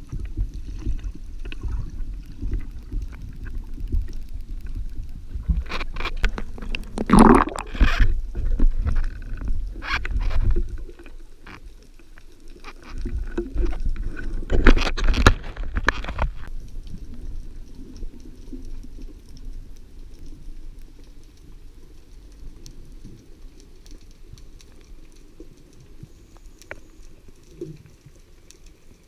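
Water moving and bubbling around a spearfisher's camera: a steady low rumble with crackling. Two louder bursts of splashing and bubbling come about seven and fifteen seconds in, and the water grows quieter toward the end.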